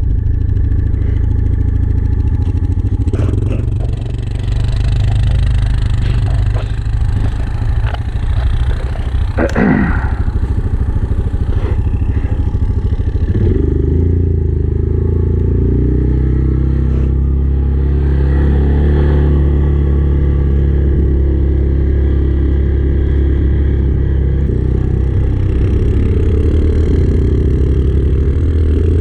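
Yamaha Kodiak ATV engine running as it is ridden through snow. Its pitch rises and falls with the throttle, with a clear sweep about ten seconds in and another shift near fourteen seconds.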